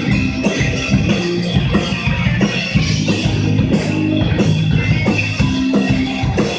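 Metalcore band playing live, with electric guitar, bass guitar and a drum kit in a loud, dense instrumental passage.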